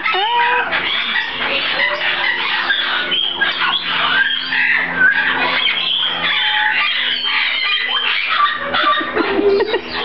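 Busy bird calls: many short chirps and squawks, several birds calling over one another.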